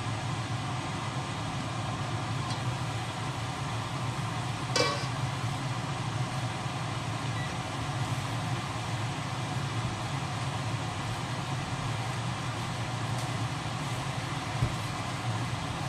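Squid frying in a wok against a steady hum and hiss. About five seconds in there is a single ringing metal clang as the stainless steel wok lid is lifted off.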